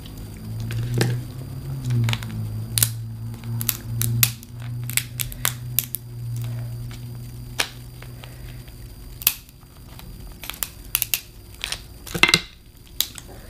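Cooked shellfish shells cracking and crunching as they are broken open by hand to get the meat out: a string of sharp cracks at irregular intervals, the loudest near the end, over a low hum during the first half.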